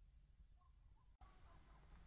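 Near silence: a faint low rumble with a few faint, short high chirps, and a brief dropout just past halfway.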